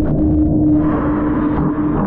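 Water blasted out of the jet pump of a Taiga Orca electric jet ski, heard underwater in a test tank: churning, bubbling water over a steady low hum. A brighter hiss of rushing water swells in under a second in.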